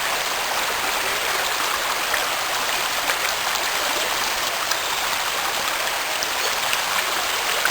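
Floodwater rushing in a steady, unbroken flow.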